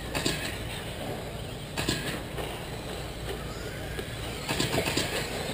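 Radio-controlled 2wd short course trucks racing around a dirt track: a steady wash of motor and tyre noise.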